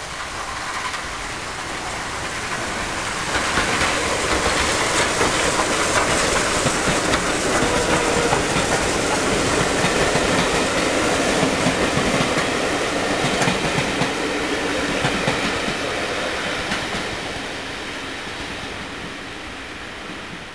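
Steam tank locomotive and its passenger coaches running past on the line, the sound building over the first few seconds, loudest as the coaches pass, then dying away near the end.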